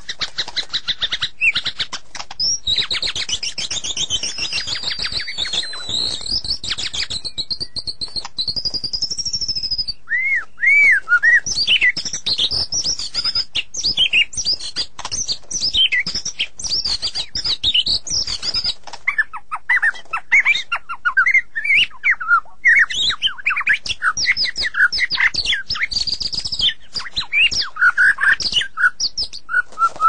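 White-rumped shama (murai batu) singing a long, varied song. For the first ten seconds it is a fast run of rapidly repeated high notes. After that come quick whistled phrases that swoop up and down, one after another.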